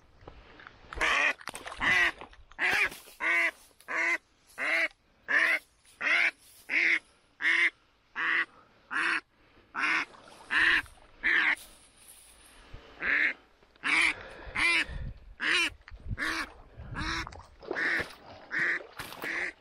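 A live decoy hen duck quacking in a long run of loud, evenly spaced quacks, about one and a half a second, with a short break about twelve seconds in. This is a decoy hen's calling, used in spring to draw drakes in.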